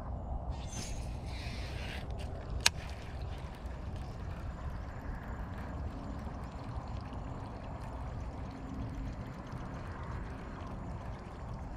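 Steady low outdoor background rumble, with one sharp click about two and a half seconds in.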